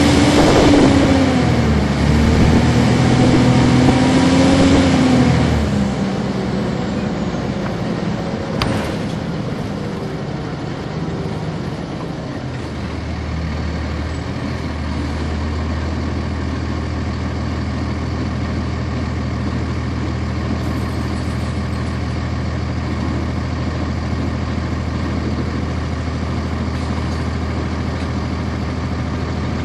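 1999 NovaBus RTS's Cummins ISC inline-six diesel heard from on board. A wavering droning whine for the first five seconds or so fades away and the sound drops, a single sharp click comes about nine seconds in, and from about twelve seconds the engine idles with a steady low hum.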